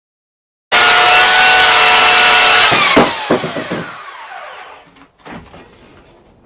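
Chainsaw running at full throttle while squaring a log, starting abruptly. About three seconds in the throttle is released and the engine's pitch falls away as it slows, with a few knocks as it winds down.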